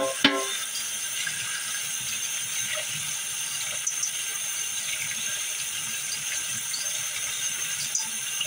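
Cold tap water running steadily from a faucet into a stainless steel colander in a sink, splashing over eggs and shells.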